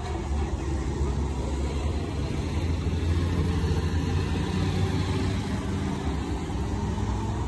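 A motor vehicle engine running steadily nearby, a low rumble with street background noise.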